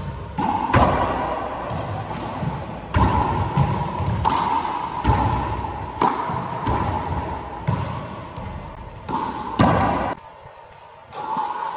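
Four-wall handball rally: a rubber handball slapped by bare or gloved hands and smacking off the court walls, about eight sharp, echoing hits. There is a short high squeak about six seconds in, and the hitting stops about ten seconds in.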